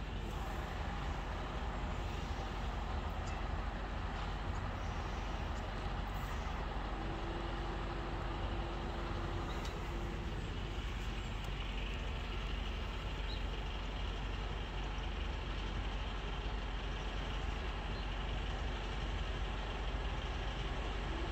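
Steady outdoor rumble of road traffic. A brief steady tone sounds for about three seconds, starting about seven seconds in.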